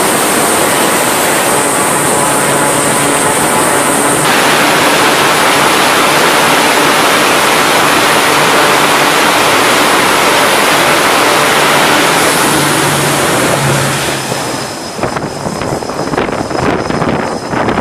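Loud, steady roar of a carrier-based E-2 Hawkeye's twin turboprop engines running on the flight deck as it is readied on the catapult. Near the end the roar drops and becomes uneven.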